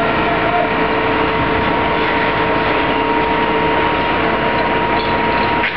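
Fire truck with aerial platform running steadily: an even, loud engine noise with a steady hum throughout.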